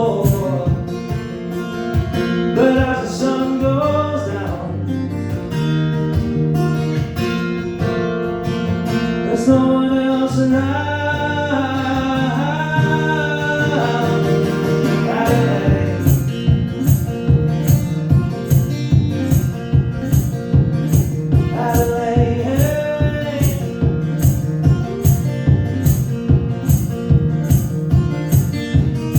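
Live acoustic guitar with a male singer holding long sung notes. About halfway through, a steady strummed rhythm with sharp beats about twice a second takes over.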